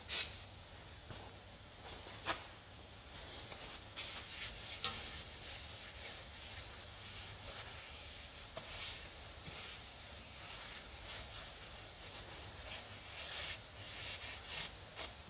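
A short spray of brake cleaner hisses at the very start. Then a cloth wipes over the face of a new brake disc, making faint, irregular rubbing strokes.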